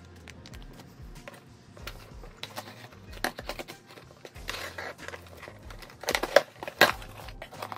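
Handling noises: a plastic zip bag crinkling, then scissors scraping and slicing through packing tape on a cardboard box, with the loudest rasps about six to seven seconds in.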